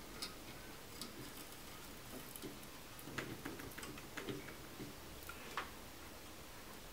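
Faint, irregular small clicks and taps of hands and a metal tool handling a circuit board.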